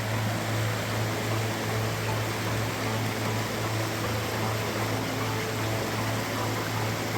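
Steady rushing of a creek's running water.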